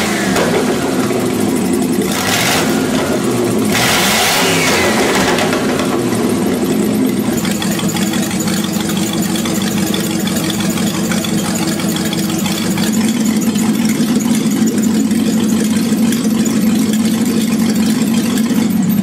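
Tatra 603 air-cooled V8 engine running, revved in three quick throttle blips in the first five seconds, then running steadily.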